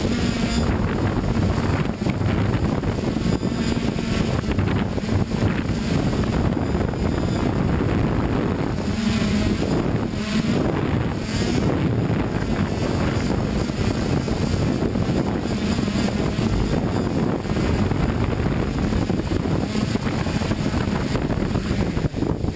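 Multirotor's motors and propellers running steadily with a hum, the rotor wash rushing over the camera's microphone.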